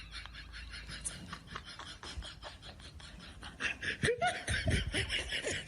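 People laughing in quick, repeated bursts, growing louder about two-thirds of the way through.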